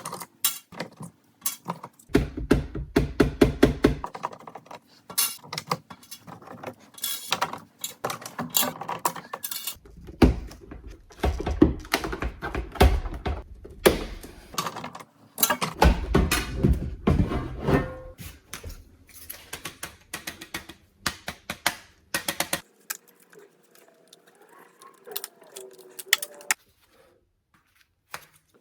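Irregular metallic rattling, clicks and taps from handling and tapping the door panel's metal speaker grille, with stretches of low thudding; it quiets down a little after two-thirds of the way through.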